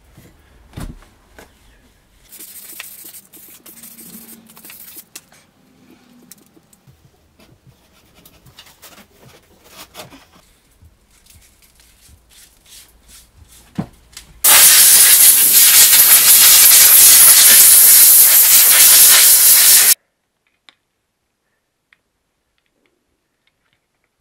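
Scattered light clicks and knocks of tools and parts being handled, then a loud steady hiss lasting about five seconds that cuts off abruptly.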